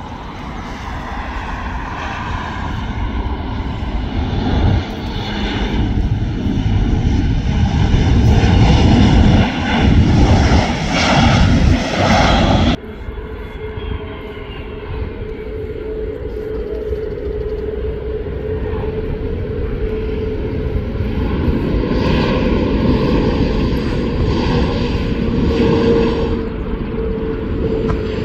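Jet airliners landing. A Boeing 737-800's engine noise grows louder during its runway rollout and cuts off abruptly about 13 seconds in. Then an Airbus A320-family jet's engines run through touchdown and rollout with a steady held tone, swelling again near the end.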